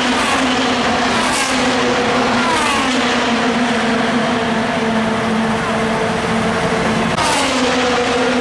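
IndyCars' twin-turbo V6 engines running at speed on the oval: a steady, loud engine drone, with cars passing close by three times, about a second in, near three seconds and about seven seconds in, each pass falling in pitch as it goes by.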